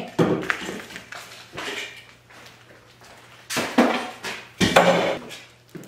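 Items being handled and moved around in short bursts of rustling and clattering, the loudest two near the end, over a faint steady low hum.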